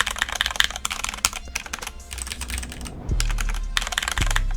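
Fast, continuous typing on a KEMOVE Snowfox DK61 mechanical keyboard with Gateron Speed Silver linear switches, a dense run of quick keystrokes. A low steady hum comes in about three seconds in.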